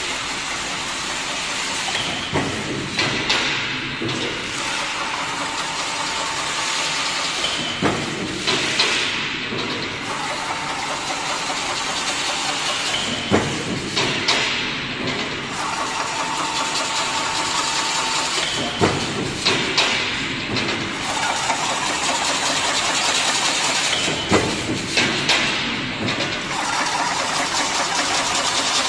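Automatic chain link fence weaving machine running: steady machine noise with a motor whine that comes and goes in stretches of a few seconds, and sharp metallic knocks now and then.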